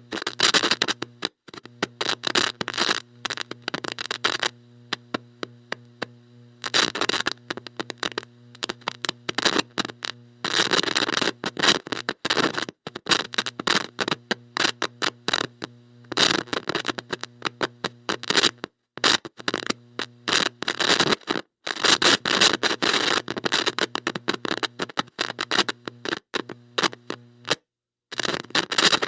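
Bad electronic connection: a steady electrical buzz broken up by irregular bursts of heavy static crackle. It cuts out to silence for a moment several times.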